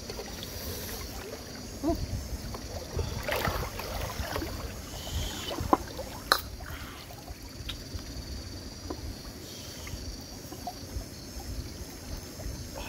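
Outdoor ambience: a steady low rumble and a steady high hiss, with a few light clicks and taps as food and utensils are handled.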